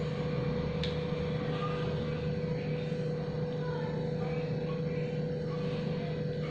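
Steady motor hum at a constant pitch, with a single faint click about a second in.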